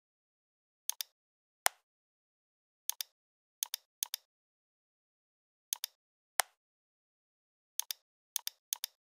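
Computer mouse clicking: about ten short, sharp clicks, most in quick pairs, with two single louder clicks, and dead silence between them.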